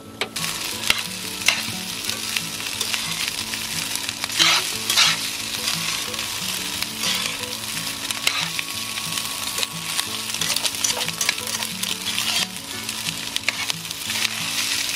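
Frozen chicken rice frying in a pan on a portable gas stove, warmed through rather than browned. It sizzles steadily while a slotted metal spatula scrapes and turns it, with a few louder scrapes along the way.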